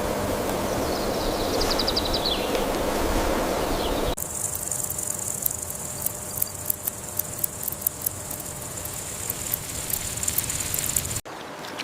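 Layered nature ambience. An even rushing noise like water or wind carries a brief high descending bird trill, then cuts abruptly about four seconds in to a steady high insect drone with scattered sharp ticks. Another abrupt change to a clicking sound comes just before the end.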